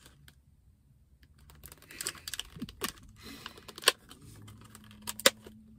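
Clear plastic food container being handled and pried open: scattered crackles and clicks of the plastic starting about two seconds in, with two sharp snaps louder than the rest.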